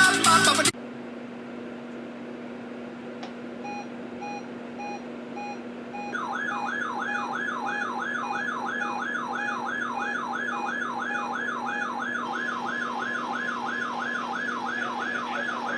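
Weather alert radio's alarm set off by the weekly warning alarm test. Short beeps start about three and a half seconds in, about two a second. From about six seconds a fast warbling siren tone sweeps up and down about three times a second, over a steady low hum.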